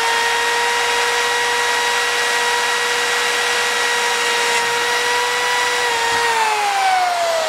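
Corded electric hand drill running at a steady whine as it bores a rivet hole through a metal T-strap. About six seconds in the trigger is let go and the pitch falls as the motor winds down.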